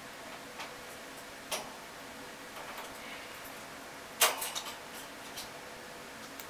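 A few scattered light clicks and taps over quiet room noise, the loudest about four seconds in, from an Amazon parrot's beak and feet working on a wire cage grate.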